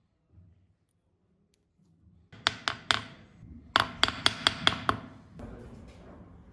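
A series of sharp knocks: three strikes, a short pause, then about six in quick succession.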